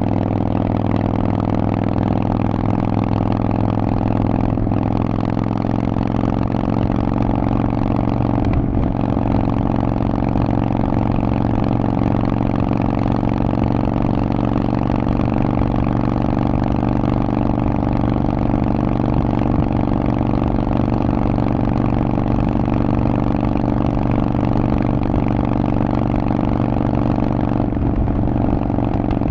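Harley-Davidson Forty-Eight's air-cooled 1200 cc V-twin running through a Vance & Hines aftermarket exhaust, held at a steady engine speed with a deep, even exhaust note. The sound dips briefly a few times, about 4 and 8 seconds in and near the end.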